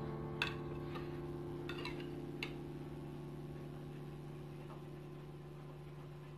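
A held chord of background music dying away slowly, with four light clicks in the first two and a half seconds as a plastic cake server knocks against the ceramic cake plate while a slice is lifted.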